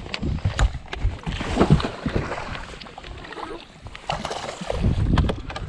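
Irregular knocks and clicks of handling aboard an aluminium fishing boat, over a steady rushing noise, with a quieter stretch about halfway through.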